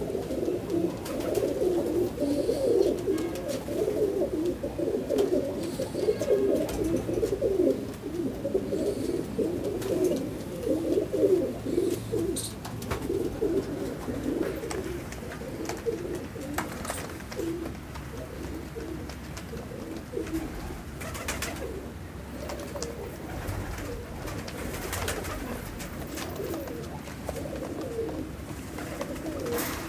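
Many domestic pigeons cooing together in a loft, an overlapping continuous chorus that thins out after about halfway. A few sharp clicks sound in the second half.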